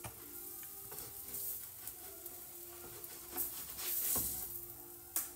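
Pancakes sizzling on a hot griddle pan, with a silicone spatula scraping and tapping against the pan a few times as it lifts them.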